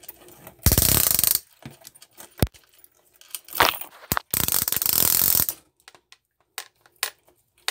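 Ratchet wrench clicking in two quick runs, the first about a second in and the second around five seconds in, with a few separate sharp clicks and knocks between and after.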